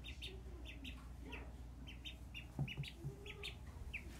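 Duckling peeping: a steady run of short, high peeps, several a second, each dropping slightly in pitch. A few soft low thumps a little past halfway.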